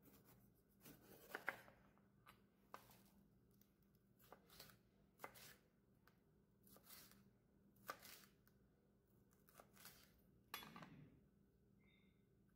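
Kitchen knife cutting through a red bell pepper and knocking on a plastic cutting board: faint, irregular crisp cuts and taps, with short scraping between them.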